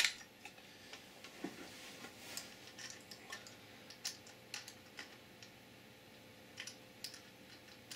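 Small metal nuts and bolts clicking and tapping against clear plastic and aluminium plates as they are fitted by hand: a sharp click at the very start, then scattered light, irregular clicks.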